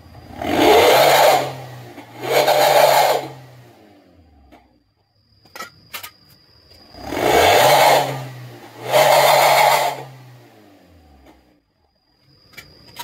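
Toyota Avanza Veloz automatic's four-cylinder engine revved through a bolt-on growl-type ('ngorok') exhaust tip. There are four short throttle blips of about a second each, in two pairs, with the engine settling back to a quiet idle between the pairs.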